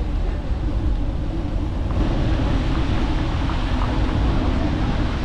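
Steady outdoor street noise: a low rumble with wind buffeting the microphone, joined by a louder hiss about two seconds in.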